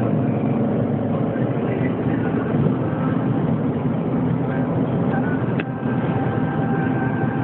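Steady car road and engine noise heard from inside the cabin while driving, with one sharp click about five and a half seconds in.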